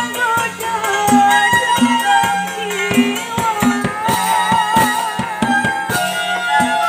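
Live cekeneng street-band music for a kuda joged procession, played through horn loudspeakers. A wavering, ornamented lead melody runs over a steady beat of bass drum and hand drums, with a long sliding note near the end.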